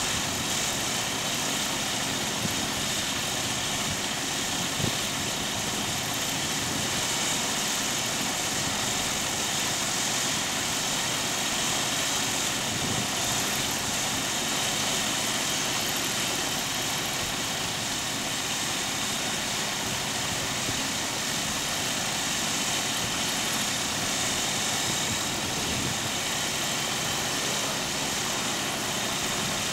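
Rotax 912 flat-four aircraft engines on a spherical airship idling steadily during a ground run, driving their caged propellers.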